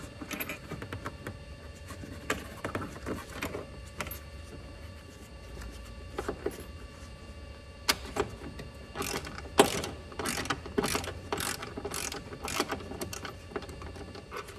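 Ratcheting wrench clicking as a bolt is run in, in an even run of about two to three clicks a second over the latter part. Before that, scattered light metallic clicks and taps of small parts being handled.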